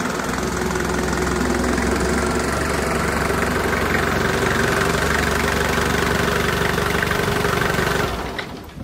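An engine idling steadily, then dying away near the end.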